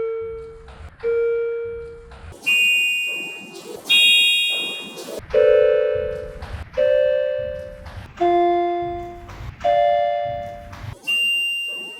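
Electronic elevator arrival chime from a Vertechs elevator, struck about eight times at roughly one-and-a-half-second intervals. Each strike is a single tone or a close pair at a different pitch, starting sharply and dying away.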